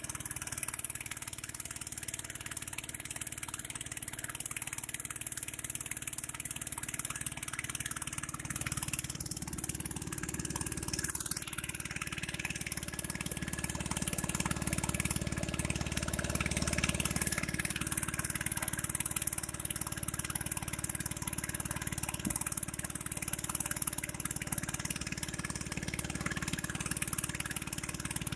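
Small engine running steadily under way, a little stronger and deeper through the middle.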